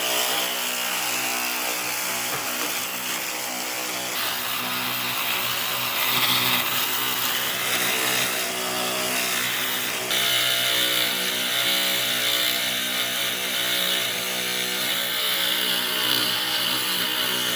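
A power tool running steadily, a motor whine under a loud high hiss, with sudden shifts in tone about four and ten seconds in.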